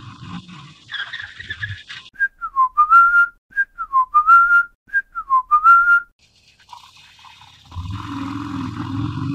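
A motorcycle engine running, then dropping away about two seconds in. In the gap a whistled phrase sounds three times, each a short high note, a dip, then a rising note held briefly. The engine comes back in near the end.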